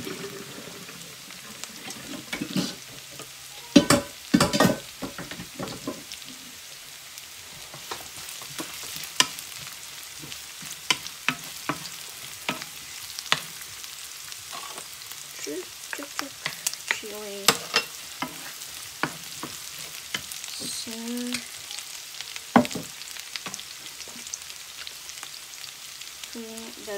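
Ground pork, garlic and onion sizzling in a stone-coated skillet, stirred with a wooden spatula that scrapes and knocks against the pan in sharp clicks, loudest about four seconds in.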